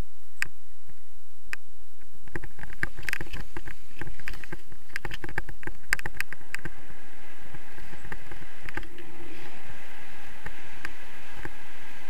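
Wind rushing over the camera microphone. From about two seconds in to halfway through, a run of quick crunching clicks comes with it, fitting boots on snow. After that only a steady rushing hiss is left.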